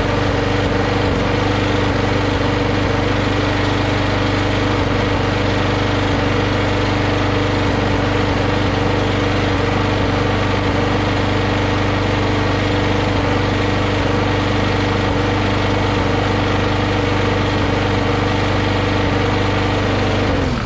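Push mower's small four-stroke auto-choke engine running steadily just after a primed start, cutting off at the very end. The owner says it hesitates at times and suspects intermittent spark.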